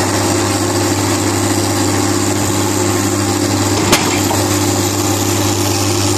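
Diesel engine of a Dresser TD-15C crawler dozer running steadily, with one sharp knock about four seconds in.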